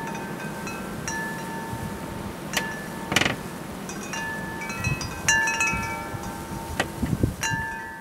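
Metal tube wind chime struck irregularly by the storm wind, about half a dozen times, its clear overlapping tones ringing on over a steady rush of wind.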